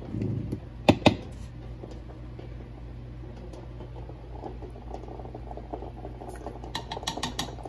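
A metal spoon clicking against a clay salt dish while scooping salt, two sharp clicks about a second in and a few lighter ones near the end, over a steady low hum.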